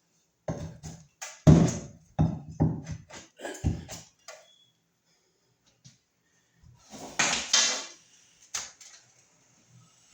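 Sheetrock being broken and pulled off a wall: a quick run of cracking knocks, then a longer crumbling rip about seven seconds in and one more knock.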